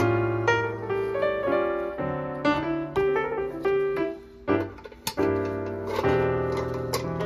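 Piano-led background music playing steadily, with a brief lull about two-thirds of the way through.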